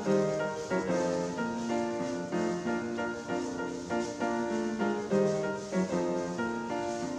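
Background music with piano-like notes playing a melody.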